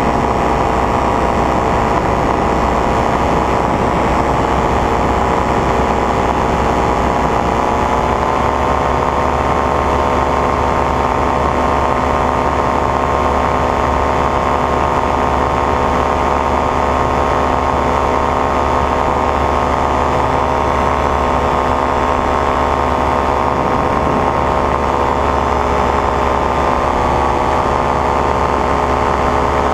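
A paramotor's engine and propeller run steadily in flight, heard up close. The engine pitch rises a little about eight seconds in and then holds level.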